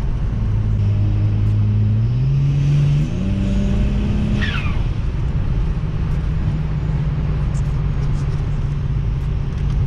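BMW N54 twin-turbo inline-six, tuned with upgraded turbos, running under way. Its note climbs in steps for the first few seconds, drops back about four and a half seconds in with a brief falling chirp, then holds a steady drone.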